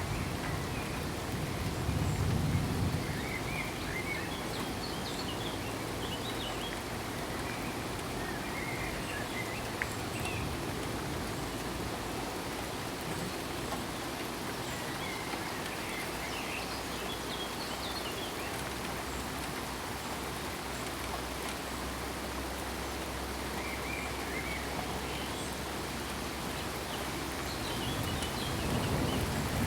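Steady rain falling, with low thunder rumbling in the first few seconds and building again near the end. Faint short bird chirps come and go over the rain.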